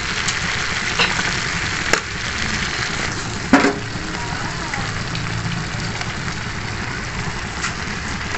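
Stir-fried vegetables sizzling in a hot pan: a steady frying hiss, with a few short clicks.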